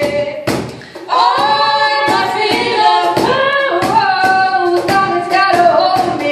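A cappella group singing: a female lead voice over backing singers in harmony, with a steady sharp beat under them. The voices dip just before a second in, then the group comes in fuller.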